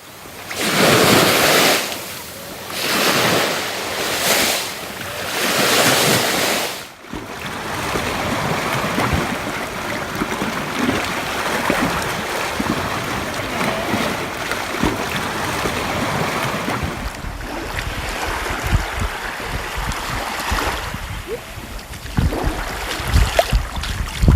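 Sea waves breaking and washing up on a shore: several loud surges one after another in the first seven seconds, then a steadier wash of surf. Wind buffets the microphone with low rumbles in the second half.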